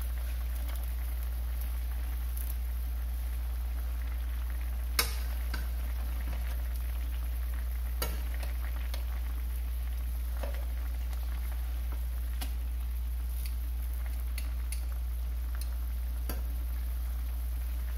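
Soy-based braising sauce bubbling and sizzling around filefish pieces in a nonstick frying pan. Metal tongs click against the pan several times as the fish is turned, loudest about five seconds in. A steady low hum runs underneath.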